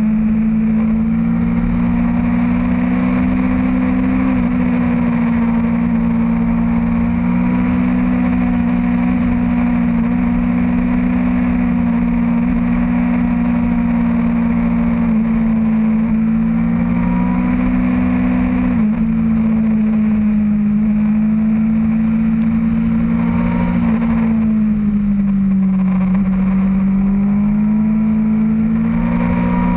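Motorcycle engine running at a steady highway cruise, heard from on board the bike, with wind noise over the microphone. The engine's pitch drifts a little as the throttle eases and opens, dipping about three quarters of the way through and climbing again near the end.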